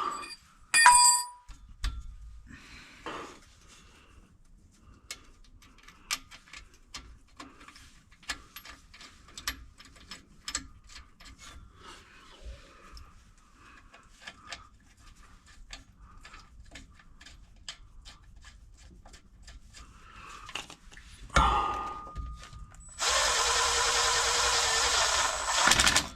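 Hand-tool work on the transmission bolts under a car: a ringing metal clank about a second in, then scattered light clicks and taps. Near the end a power tool runs steadily for about three seconds, driving the bolts home.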